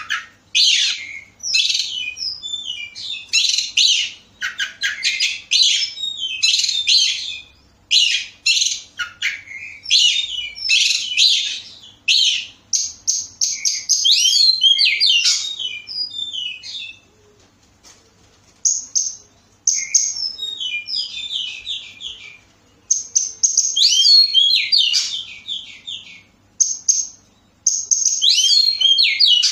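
Oriental magpie-robin (kacer) singing a long, varied song of rapid whistled notes and trills in quick phrases, with brief pauses and a longer break about 17 seconds in.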